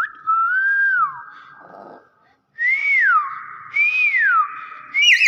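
Hill myna (beo) whistling: a whistle that rises and falls, then after a short pause two more that swoop up and drop, and another starting near the end, each with a rough, raspy edge.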